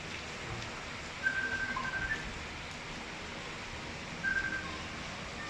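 Heavy rain falling steadily, with two short spells of high whistle-like notes, about a second in and again near the end.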